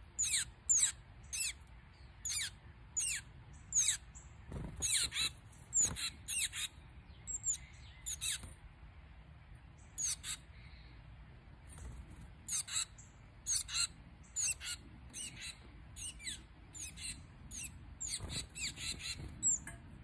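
Tufted titmice calling close by: a run of short, high chirps, each sweeping down in pitch, about one or two a second, with a few brief pauses.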